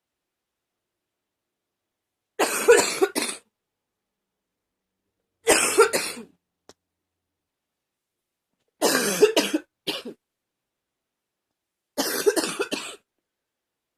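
A person coughing hard in four separate bouts, a few rough coughs in each, about three seconds apart.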